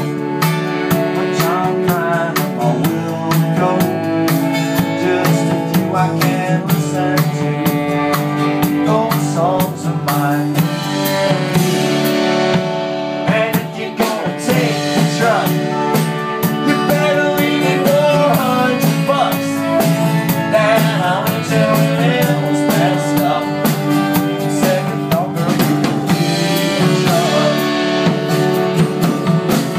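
Live band playing an instrumental stretch of a country-blues song: drum kit keeping a steady beat under electric and acoustic guitars, with a saxophone.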